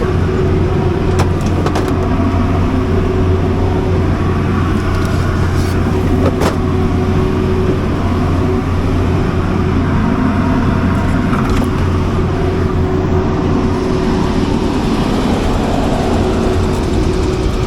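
400 kW Generac gas-fuelled standby generator running steadily with a constant low hum, a few light knocks over it in the first several seconds.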